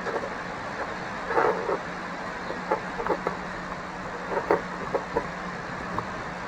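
Wires and a plastic connector being handled, giving scattered small clicks and rustles as the wires are worked through the connector, over a steady low hum.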